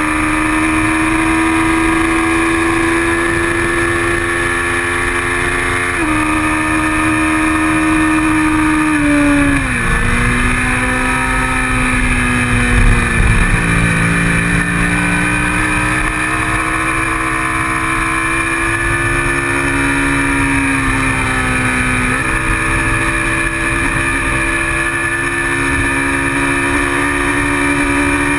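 Kawasaki Ninja 650R's parallel-twin engine at race pace, heard from a camera on the bike. It revs hard, drops pitch sharply on upshifts about six seconds in and again near the end, falls away when the throttle is rolled off around a corner, then climbs steadily as the rider accelerates out. Under it runs a low rumble of wind buffeting the microphone.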